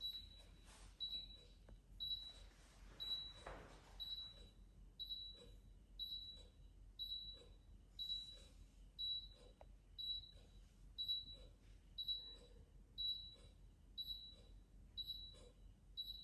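Philips UVC Disinfection Trolley Gen 2 beeping faintly, a short high beep about twice a second: its countdown warning before the UV-C lamp switches on.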